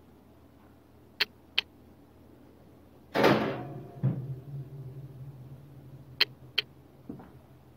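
Toaster oven's metal door being swung shut: a loud rush as it swings up, a clunk as it closes about a second later, then a low ring that fades. Two sharp clicks come before it and two more after.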